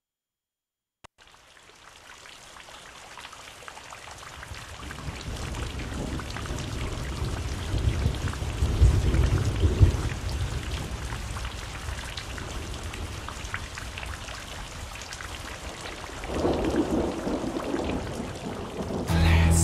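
Rain falling with thunder, fading in after about a second of silence and swelling to a heavy rumble of thunder about nine seconds in, with another rumble near the end.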